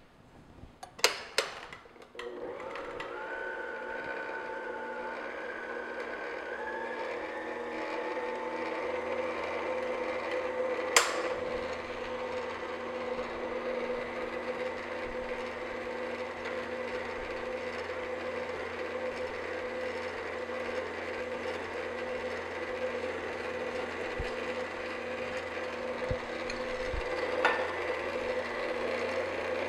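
Stand mixer motor running steadily on low speed, beating flour and milk into a butter cake batter. It starts about two seconds in after a couple of clicks, and there is one sharp knock about eleven seconds in.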